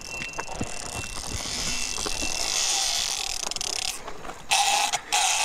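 Fishing reel's drag buzzing as line is pulled off, growing louder through the middle and breaking off near the end: a fish has taken the bait and is running.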